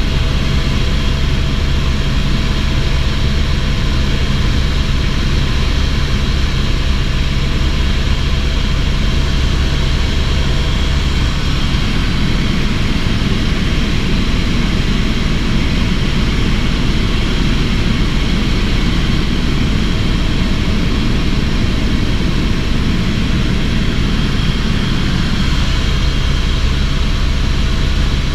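Helicopter in steady flight: an unbroken, loud drone of rotor and engine, with a deep steady hum underneath.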